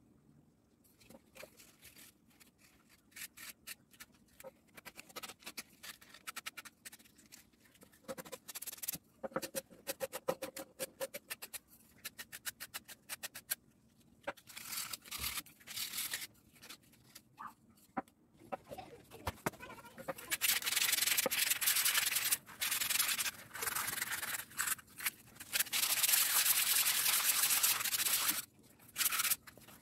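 Wood being hand-sanded: a folded sheet of sandpaper rubbed along a wooden ladle handle in quick, short back-and-forth strokes. About two-thirds of the way in the sanding turns louder and steadier.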